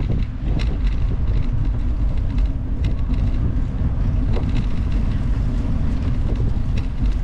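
Wind buffeting the microphone of a camera carried on a moving bicycle: a steady low rumble, with scattered faint clicks.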